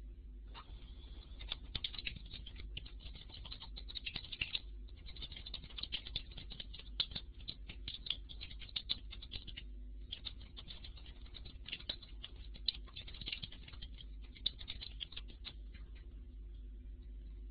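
Rapid, scratchy clicking and rustling close to the microphone, in three stretches of about four to five seconds each with short gaps between, over a faint steady electrical hum.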